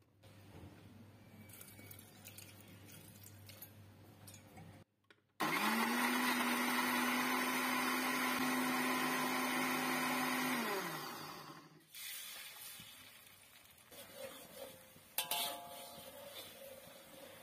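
Countertop blender motor starting about five seconds in and running at a steady whine for about five seconds as it grinds chopped onion, chilli and ginger into a wet spice paste, then falling in pitch as it winds down. Fainter handling noise before it and a few clicks near the end.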